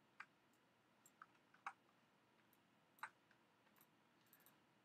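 Faint, irregular clicks of a computer mouse, about half a dozen, the loudest under two seconds in and about three seconds in, over near-silent room tone.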